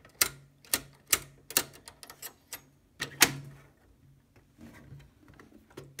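The ribbon reverse mechanism of a 1952 Rooy portable typewriter clicking as it is worked by hand. There are about nine sharp metallic clicks in the first three and a half seconds, the loudest a little after three seconds in, followed by faint handling rustle.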